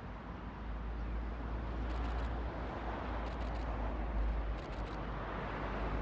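Steady low outdoor rumble with a faint background hiss. Three short bursts of faint rapid clicks come about two, three and a half and five seconds in.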